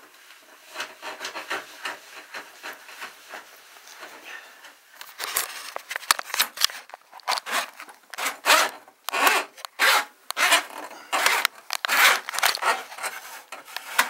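Irregular rubbing and scraping strokes, faint at first and louder and sharper from about five seconds in.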